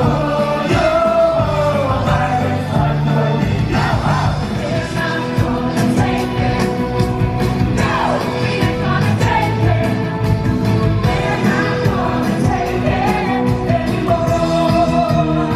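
Song with a sung vocal line over a steady backing of sustained bass and chord notes.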